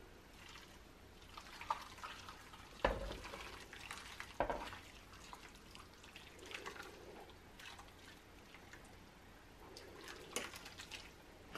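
Gravy poured from a metal saucepan onto meat patties in a baking pan: a faint trickling and splashing, with a few light knocks, the loudest about three seconds in.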